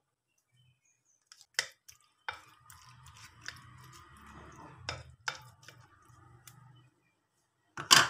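Wooden spatula stirring wet chicken masala mixture in a glass bowl, with several sharp knocks against the glass and the loudest knock near the end.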